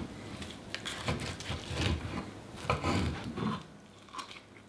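A knife sawing back and forth through smoked bison ribs on a wooden cutting board: a run of uneven rasping strokes with soft thuds, stopping about three and a half seconds in.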